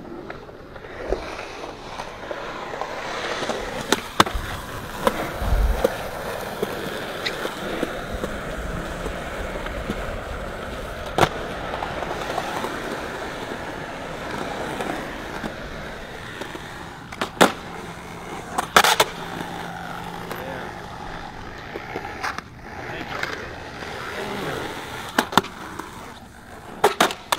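Skateboard wheels rolling on concrete, a steady rolling noise, with sharp clacks of the board striking the ground or a ledge every few seconds.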